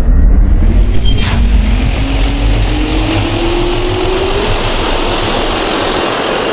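Loud engine-like roar with a whine that climbs slowly and steadily in pitch, like a jet or motor spooling up, with a single click about a second in.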